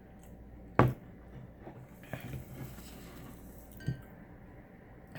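Dishes clinking: one sharp clink about a second in, then two faint taps.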